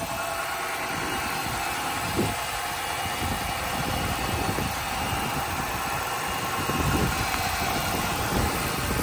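Chrysler 300 SRT8's 6.1-litre HEMI V8 idling steadily shortly after a cold start.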